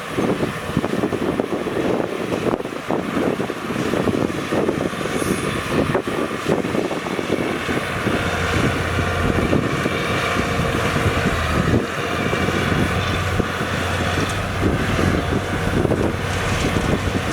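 Diesel engines of heavy earthmoving machines running, with a steady low engine hum settling in about halfway through.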